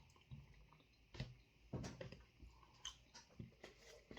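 Faint chewing and mouth sounds from a person eating chicken fingers, with soft scattered clicks and smacks.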